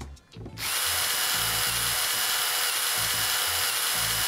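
A steady whirring hiss with a thin high whine starts about half a second in, over background music with a low bass line.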